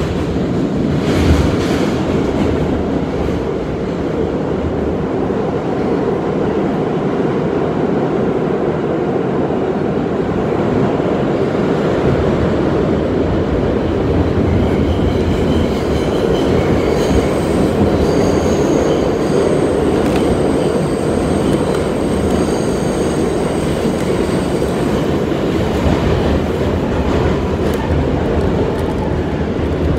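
A New York City subway car running, heard from inside: a loud, steady rumble of wheels and car body. About halfway through, thin high-pitched squealing tones join in for several seconds.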